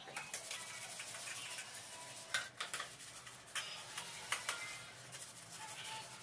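Steel plates being scrubbed and rinsed by hand at a tap, with several metallic clinks and clanks, some leaving a short ring, over a steady hiss.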